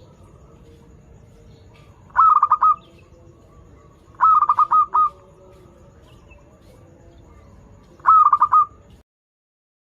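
Zebra dove (perkutut) singing: three short phrases of rapid, chattering coos, each a quick run of about four or five notes, with pauses between. The sound cuts off abruptly near the end.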